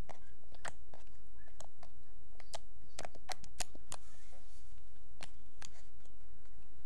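Fingers poking and pressing a soft homemade slime, making about ten short, sharp pops and clicks at irregular intervals, with a pause of about a second past the middle.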